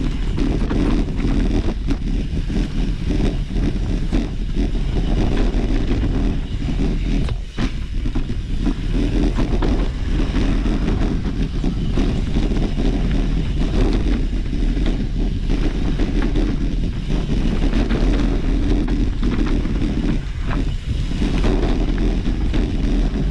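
Steady rumbling wind and road noise with frequent small knocks and rattles, as from a camera carried on a mountain bike riding a trail.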